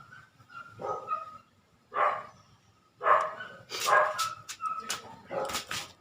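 A dog barking about five times in short single barks, with sharp clicks of a tool on metal mixed in near the end.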